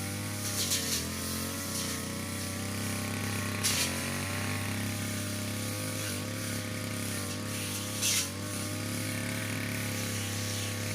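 Brush cutter engine running steadily at working speed, its pitch wavering slightly. Short high crackles come about a second in, near four seconds and around eight seconds.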